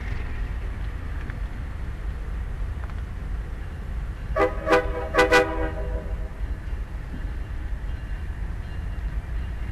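Diesel locomotive horn sounding four short, quick blasts about halfway through, over the steady low rumble of a train rolling past.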